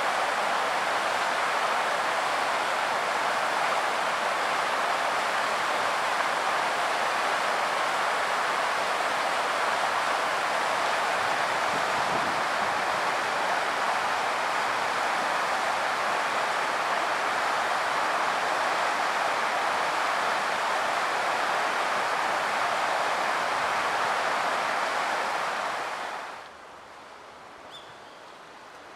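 Steady rushing of a river in flood after a typhoon, a dense even roar of fast water. It cuts off suddenly a few seconds before the end, leaving a much quieter outdoor background with a few faint high chirps.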